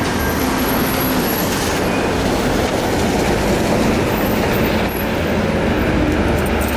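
A city minibus's diesel engine running close by, a steady heavy rumble over street traffic noise.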